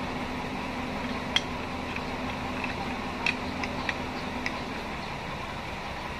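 Light metal clinks from a manual transmission's shift fork and selector rod assembly being handled. There is one sharp clink a little over a second in, then a quick cluster of about four lighter clinks a couple of seconds later. Under them runs a steady low background hum that stops a little before the end.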